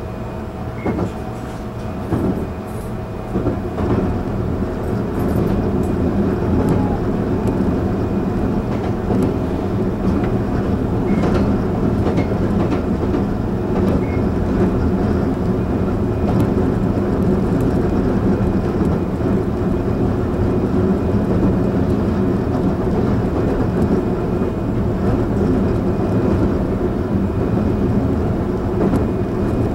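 Taiwan Railway EMU700 electric commuter train running, heard from inside the car: a steady hum over rail and wheel noise, growing louder over the first few seconds and then holding steady.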